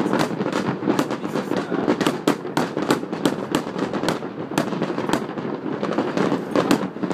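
Fireworks display going off: many sharp bangs and cracks in quick, irregular succession, several a second, over a continuous dense rumble of further bursts.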